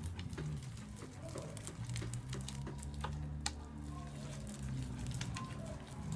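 Homemade glue slime being kneaded by hand on a table, making irregular sticky squelches and little clicks and pops as it pulls away from the hand and the tabletop.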